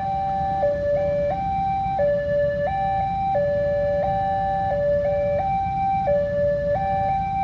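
Railway level-crossing warning siren sounding continuously as a two-tone alarm, switching between a lower and a higher tone about every two-thirds of a second: the signal that a train is approaching and the barrier is closing.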